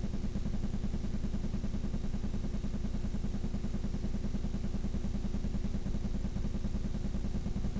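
A steady, low-pitched engine throb running at an even speed.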